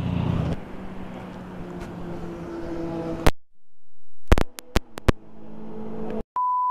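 Motorcycle engine idling, cut off abruptly after about three seconds; a few sharp clicks follow, then a steady, pure electronic beep tone sounds for about a second and a half near the end.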